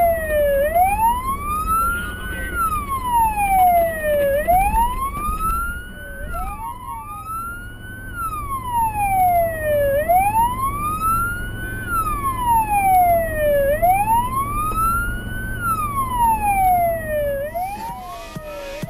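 Fire engine's wailing siren, rising and falling slowly in pitch, each rise and fall taking about four seconds, over a low rumble of the moving vehicle.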